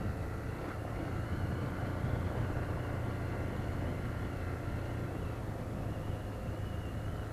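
Honda CB300 motorcycle's single-cylinder engine running steadily under way, with road and wind noise.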